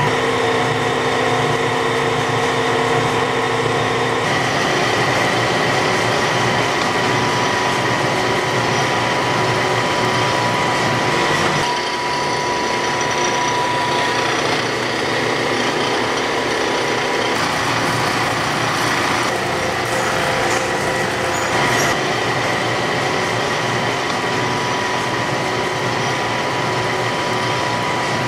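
Cider mill machinery running steadily: the hydraulic rack-and-cloth cider press and its pumps hum and whine, with a few fixed high tones over a low rumble. The mix of machine sounds shifts abruptly several times.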